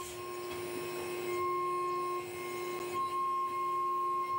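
Haas VF2 CNC vertical mill cutting an aluminium block under flood coolant: a steady, high two-tone whine from the spindle and end mill in the cut, over a hiss of coolant spray.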